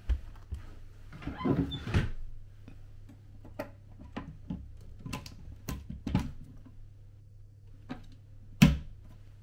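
A mini-fridge door pushed shut with a knock, then a string of separate clicks as buttons are pressed on an electronic safe's keypad. Near the end the safe's lock releases with a sharp clunk as its door is pulled open. A low steady hum runs underneath.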